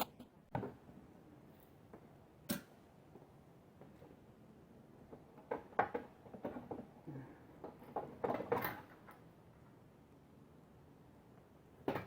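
Scattered clicks and knocks of hand tools and metal and plastic parts as a lawn mower engine's recoil starter is unbolted and lifted off, with short bursts of clatter about six and eight seconds in.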